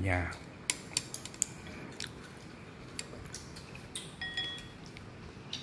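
Chopsticks clicking and tapping against a ceramic bowl while stirring noodles in dipping sauce: a quick run of sharp clicks in the first two seconds, then sparser taps. A brief faint high ring sounds about four seconds in.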